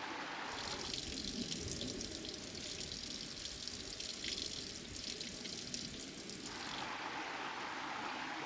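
Running water splashing close by over the steady murmur of a stream. The nearer, brighter splashing starts abruptly about half a second in and stops just before the end, leaving the softer stream sound.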